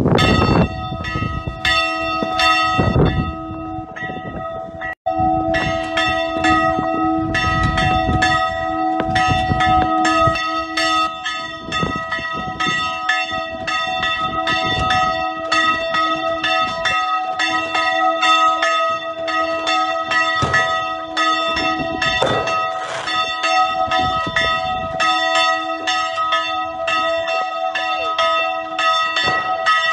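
Church bells ringing continuously, struck over and over so that the tones overlap into a sustained peal.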